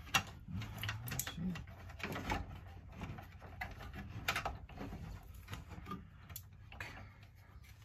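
Irregular light clicks and rattles of wires and plastic connectors being pulled and handled inside an RV power converter panel's metal housing.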